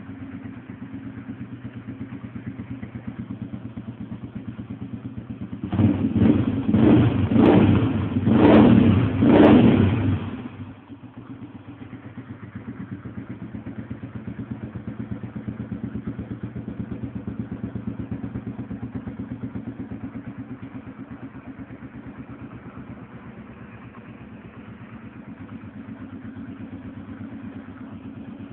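An engine idling steadily, revved up about four times in quick succession partway through before settling back to idle.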